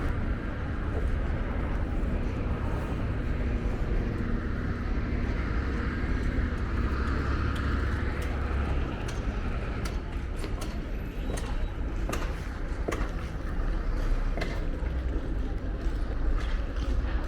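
Steady rushing of water flowing over a full dam, with a deep rumble underneath and a few faint clicks in the second half.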